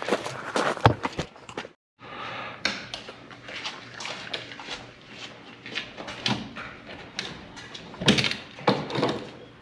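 Irregular knocks, clunks and clicks of hose fittings and hardware being handled while the old 2-inch water-pump plumbing is taken off the truck, with a louder pair of knocks near the end.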